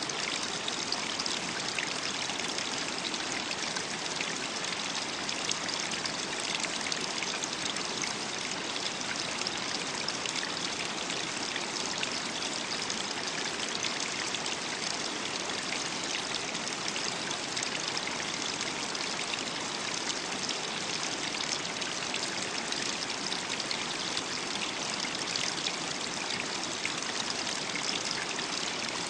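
Running water of a stream, trickling and splashing steadily without a break.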